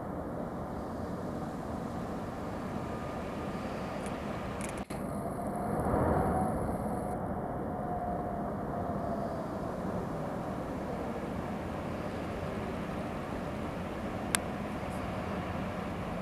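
Steady outdoor rumble and hiss, swelling briefly about six seconds in, with one sharp click near the end.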